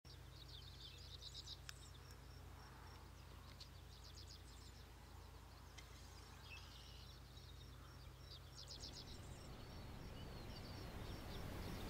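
Faint outdoor ambience of small birds chirping and trilling in short, repeated phrases over a low steady rumble. A soft hiss swells toward the end.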